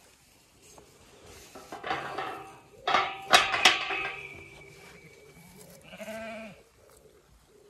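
Zwartbles ewes bleating, several calls in the first half and one more about six seconds in. The galvanised steel field gate clanks sharply twice in the middle as it is handled, and its bars ring on for about two seconds afterwards.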